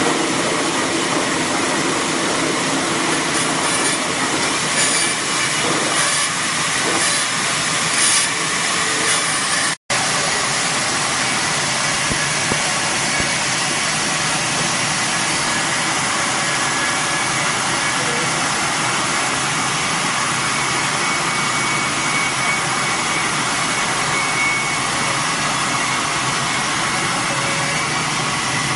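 Loud, steady mechanical running noise with an even hiss, unchanging throughout, broken by a sudden brief cut-out about ten seconds in.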